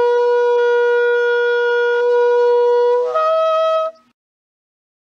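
Shofar blown in one long blast: a steady held note that jumps up to a higher note for its last second, then cuts off about four seconds in.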